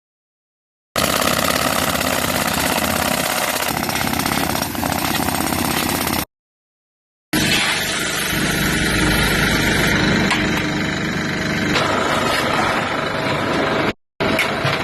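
Asphalt recycling repair machine running loud and steady, with a fast, even pulsing in the first stretch. It comes in three pieces, cut off abruptly, with a second of silence after the first and a brief gap near the end.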